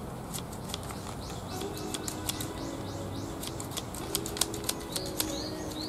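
Hand scissors snipping the roots off wakegi (scallion) bulbs: repeated sharp, irregular clicks, a couple each second. The scissors are dull and cut poorly. A bird chirps a quick run of notes in the background about halfway through.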